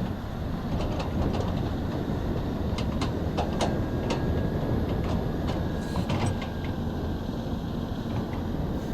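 Excavator engine running steadily, with repeated sharp metallic clanks and clicks from the machine working.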